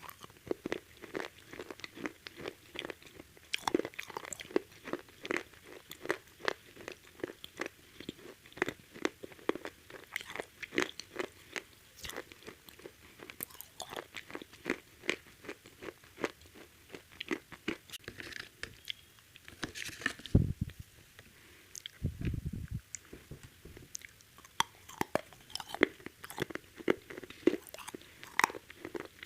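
Close-up biting and chewing of crispy KFC fried chicken: a steady run of crackling crunches from the fried coating, with two low thuds about two thirds of the way through.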